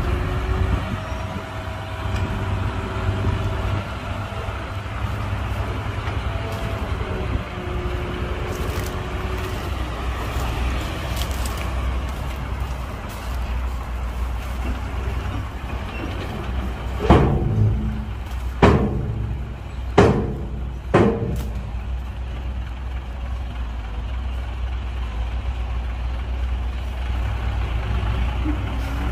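Heavy dump truck's diesel engine running steadily, with four loud bangs, a second or so apart, a little past halfway.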